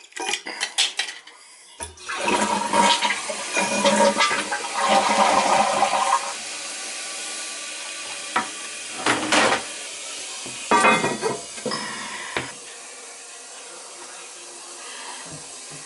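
A newly installed toilet being flushed: a few clicks, then a loud rush of water for about four seconds, followed by the tank refilling with a steady hiss, broken by a few knocks.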